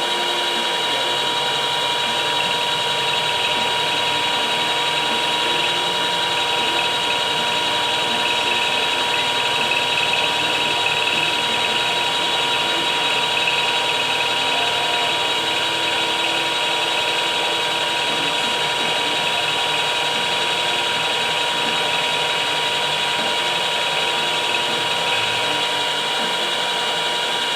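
Milling machine running with its end mill taking a light spring pass along a slot, a final finishing cut. It is a steady machine whine with constant high tones and an even level throughout.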